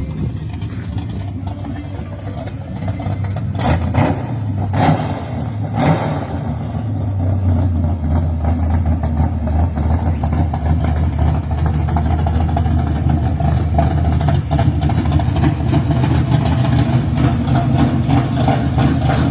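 Gasser hot rod's engine running with a loud, steady rumble, with a few sharp cracks about four to six seconds in. The engine note then rises a step and holds.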